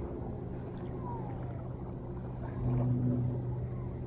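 A motor, most likely a boat's, humming steadily at a low pitch over the water, swelling louder for about a second two-thirds of the way through.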